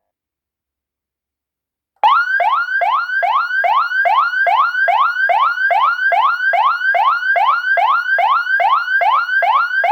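Black 12 V DC car horn/emergency siren sounding a rapid siren tone: starting abruptly about two seconds in, it sweeps up in pitch and drops back sharply, about three times a second, loud and even.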